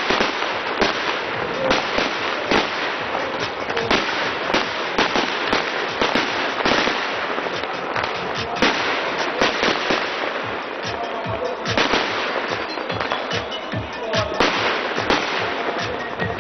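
Aerial fireworks display going off in a dense, irregular string of sharp bangs over continuous crackling.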